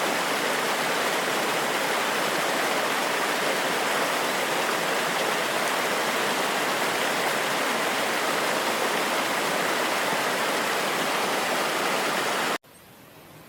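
Rushing water running steadily, an even loud rush. It cuts off abruptly near the end, giving way to a much quieter, slowly swelling rush.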